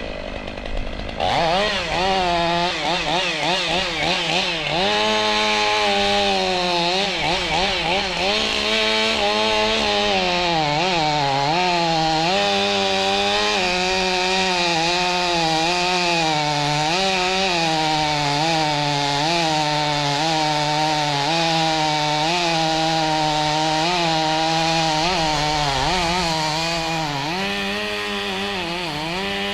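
Stihl two-stroke chainsaw running at high revs while cutting dead oak, its pitch dipping and recovering again and again as the chain bites under load.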